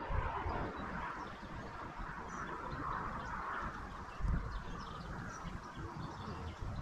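Outdoor ambience of small birds chirping, with wind rumbling on the microphone. The rumble is louder for a moment a little after four seconds.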